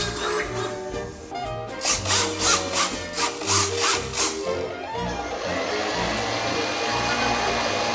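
Background music over RC servos buzzing in a quick run of about eight short strokes, about three a second, as the model's control surfaces are swept from the transmitter. From about five seconds in, a steady whine takes over.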